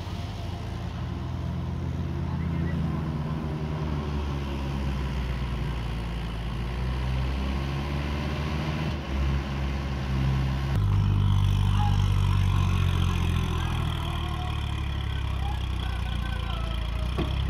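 Diesel tractor engines running as tractors pull past at close range: a steady low engine drone that grows louder and shifts in pitch about eleven seconds in as a second tractor comes near.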